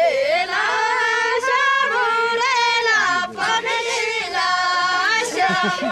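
Girls and young women singing a song together in high voices, the melody wavering and held in long phrases.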